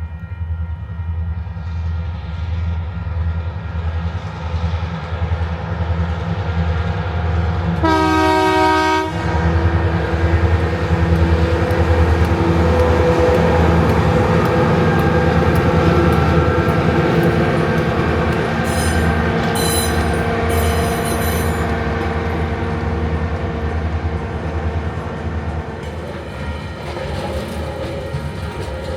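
Two ex-Queensland 2050 class diesel-electric locomotives with EMD 645 prime movers working hard at the head of a loaded coal train, their engines a steady deep beat that grows louder as the train comes past and then eases off. The locomotive horn sounds once, briefly, about eight seconds in, and the wagons click over the rail joints as they roll by.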